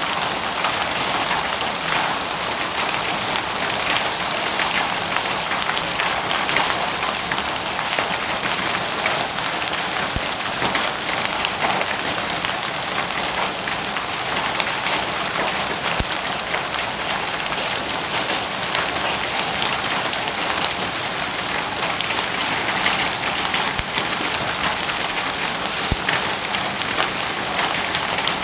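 Heavy hail and rain pelting down: a dense, steady hiss of rain with countless small clicks of hailstones striking the ground, and now and then a sharper knock.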